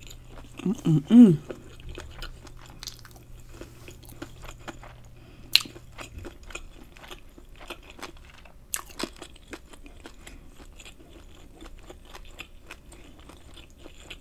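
Close-miked chewing of battered deep-fried lobster tail: crisp crunches and wet mouth clicks scattered throughout. A short hummed "mm" of enjoyment comes about a second in.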